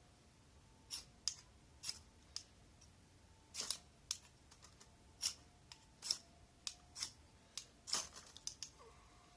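Irregular sharp clicks and snaps, about a dozen of them scattered unevenly, the loudest around the middle and near the end.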